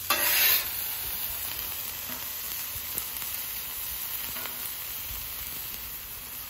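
Diced onions sizzling on a hot steel flat-top griddle set to medium heat, a steady frying hiss. A brief louder rush of noise comes right at the start.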